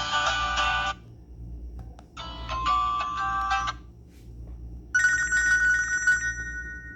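Nokia 3120 Classic ringtones played on a Nokia 130 phone's loudspeaker: three short tunes one after another, each stopping after one to two seconds with a brief pause before the next. The last one ends on a held tone.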